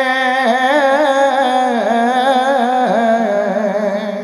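A man's voice sings a long held note without words in a Bengali devotional song. The note is held steady at first, then, about half a second in, it turns into wavering ornaments that bend up and down in pitch. It fades near the end.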